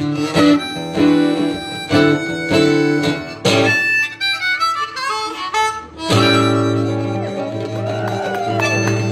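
Live duo music: guitars play chords with sharp, decaying strums, and about six seconds in a harmonica joins with bending, wavering notes over a held chord.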